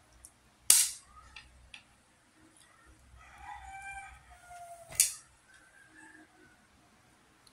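A rooster crows once about three seconds in, a single call of about a second and a half that falls in pitch at the end. Two sharp, loud clicks, about a second in and again at five seconds, are the loudest sounds.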